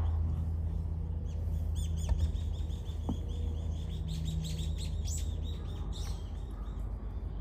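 Small birds chirping in quick, rapid runs, over a steady low hum.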